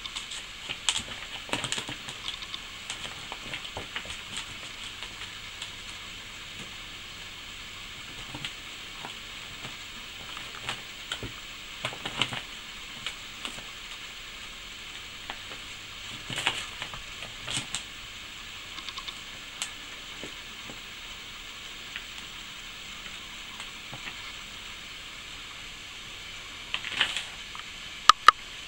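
Kitten pawing and pouncing among paper and a plastic bag: scattered crinkles, rustles and light taps over a steady background hiss, with a few louder rustles and two sharp clicks near the end.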